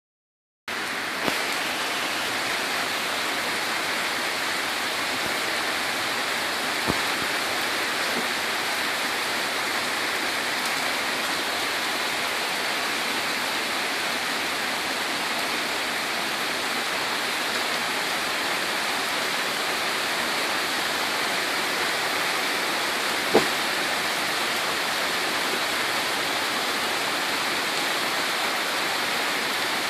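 Heavy rain pouring down in a steady downpour, a flash-flood cloudburst. A few short sharp taps stand out, the loudest about three-quarters of the way through.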